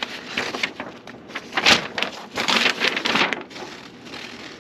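Irregular rustling and crinkling of packaging as garbage disposal parts are searched through and handled, with a sharper knock a little under two seconds in.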